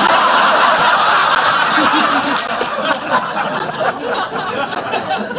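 Studio audience laughing, a dense crowd laugh that is loudest at first and tails off near the end.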